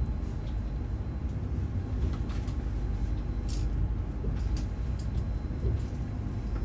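Running noise of an ICE train heard from inside a passenger car: a steady low rumble of wheels on rail, with short sharp high squeaks and clicks now and then as another train passes alongside.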